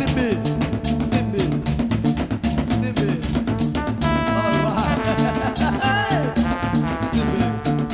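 Band music with brass horns and drums over a steady, quick dance beat.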